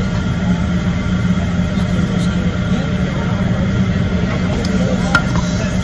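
Steady low rumbling hum of background machinery, with faint voices underneath and one light click about five seconds in.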